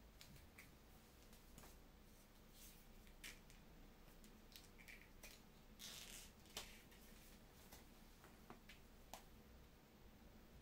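Near silence: room tone with a few faint, scattered small clicks and rustles.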